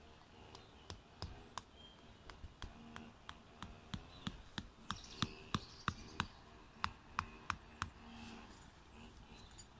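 Rubber mallet striking a metal tent peg into the ground: about twenty quick, sharp taps at roughly three a second, stopping shortly before the end.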